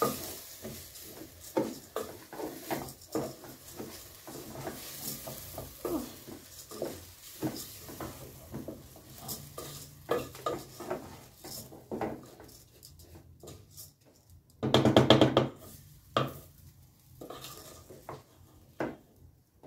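Spoon stirring rice as it fries with onions and carrots in a metal pot: repeated scraping strokes, about two a second, over a light sizzle, thinning out after about twelve seconds. About fifteen seconds in, a loud pitched sound lasting about a second.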